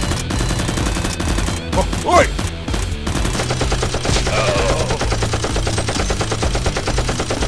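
Rapid, continuous machine-gun fire sound effects, dubbed over the Nerf blasters' firing, over steady background music. A couple of short cries are heard about two seconds in and again near the middle.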